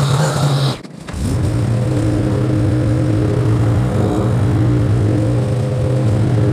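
Small gasoline engine running steadily at high speed, a steady droning pitch, with a brief drop-out about a second in.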